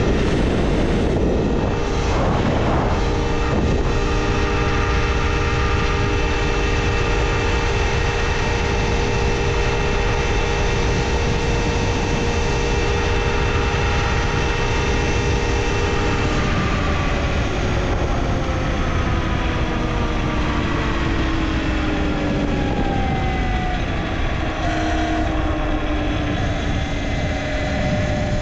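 Talaria Sting R electric dirt bike's motor and drivetrain whining steadily at riding speed, over a strong rush of wind on the helmet or bike camera. About halfway through, the whine begins to slide gradually down in pitch as the bike slows.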